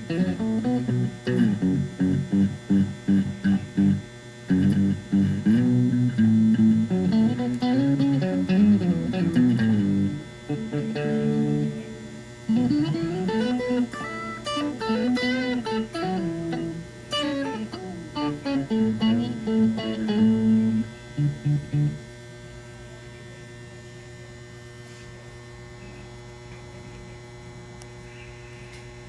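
Electric guitar played through a Rowin Harmonizer pedal: single-note phrases with added pitch-shifted harmony notes moving in parallel. The playing stops about two-thirds of the way through, leaving a steady mains hum from the rig.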